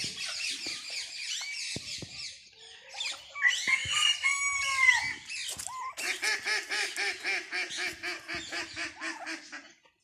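Farmyard fowl calling: a dense chatter of small chirps at first, a few longer gliding calls around the middle, then a steady series of rapid calls, about five a second, for several seconds until near the end.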